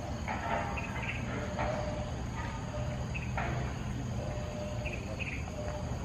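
Steady high chirring of forest insects over a constant low hum, with a few short, irregular sounds now and then.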